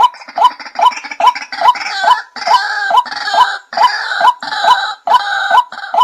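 White-breasted waterhen calling: a loud, regular series of sharp rising 'wak' notes, about two and a half a second. A harsher, croaking chorus joins in through the middle of the series.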